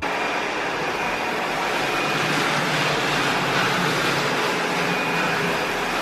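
ILIFE A4 robot vacuum running in spot mode, a steady rushing hum with a faint high whine, as it picks up cereal scattered on a hard floor.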